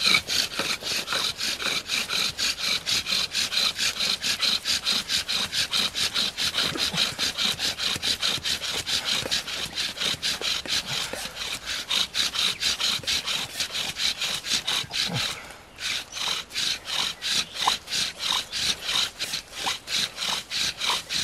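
Bow drill friction fire: a wooden spindle, spun by a shoestring bow, grinding into a soft-wood hearth board. It makes an even, rhythmic rasp of about four strokes a second, with a brief pause about fifteen seconds in. The hearth wood is soft enough that the spindle keeps burning through it.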